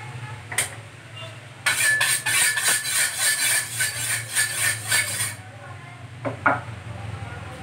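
Rapid scraping and clinking of metal kitchenware against a dish for about three and a half seconds, starting a couple of seconds in, over a steady low hum.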